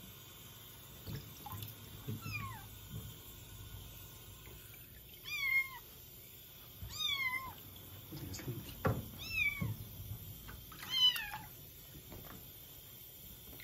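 Kitten meowing while being bathed: high-pitched cries that bend in pitch, a faint one about two seconds in, then four louder ones roughly two seconds apart. Water splashes in the basin between the cries.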